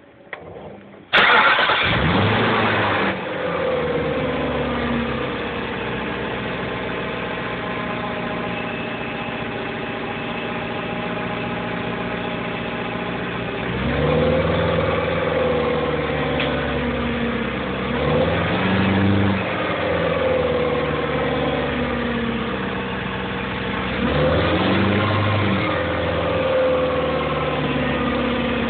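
BMW E39's M62 V8 engine starting about a second in, flaring up briefly and settling into a steady idle, then revved and let fall back three times. The owner is showing an engine noise that this material does not identify.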